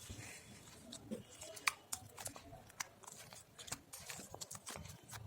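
Hands kneading glue slime with foam beads mixed in, giving faint, irregular crackling clicks.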